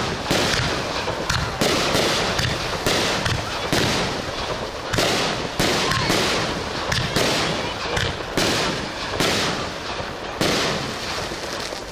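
Aerial firework shells bursting in quick succession, about one or two bangs a second, with crackling between them and a brief whistle about six seconds in. The barrage thins out near the end.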